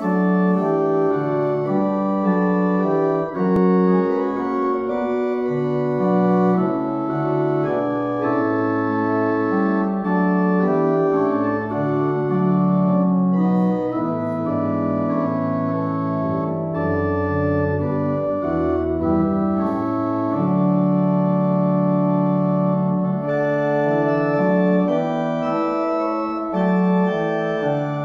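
Pipe organ playing a prelude: held chords that change every second or so over a moving bass line in the pedals.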